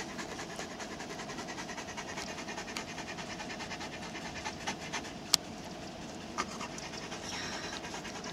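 Greyhound panting hard and fast in an even rhythm, tired out after running. A sharp click sounds about five seconds in.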